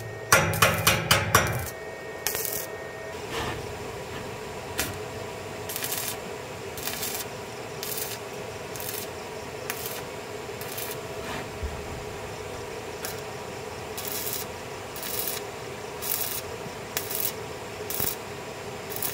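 A few quick knocks at the start, then repeated hand-driven rubbing strokes on a surface, about one a second.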